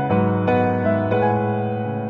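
Background music: a gentle piano melody, a new note every half second or so over held lower notes.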